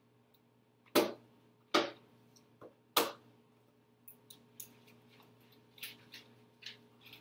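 Three sharp clicks about a second apart, then a run of lighter, irregular ticks from small objects handled on a table.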